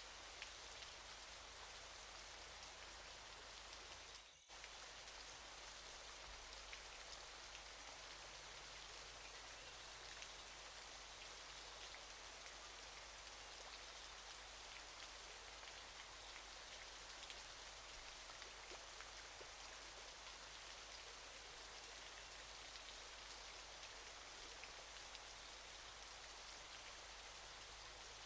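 Faint, steady rushing hiss of falling water from a waterfall, with fine pattering droplets, briefly dropping out about four seconds in.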